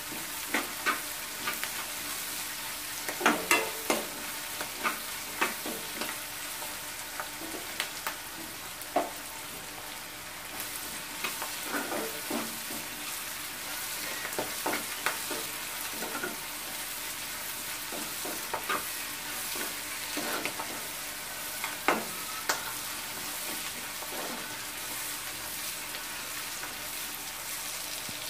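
Chopped onions and green chillies sizzling in oil in a nonstick kadai, stirred with a steel spatula that scrapes and taps the pan at irregular moments over a steady frying hiss.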